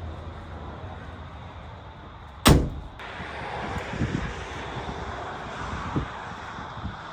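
A single sharp bang about two and a half seconds in, over steady background noise, followed by a few softer knocks.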